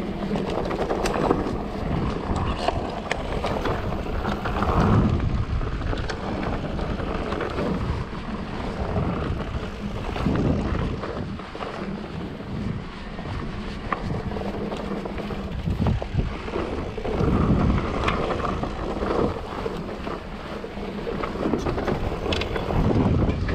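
Mountain bike riding down a dirt-and-rock trail: tyres rumbling over the ground, with frequent sharp clicks and knocks from the bike rattling over bumps, and wind buffeting the microphone in gusts.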